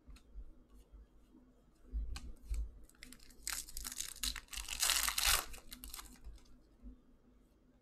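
Foil wrapper of an Upper Deck Series One hockey card pack being torn open and crinkled, a rough tearing rustle of about two and a half seconds, loudest around five seconds in. A few light clicks come before it.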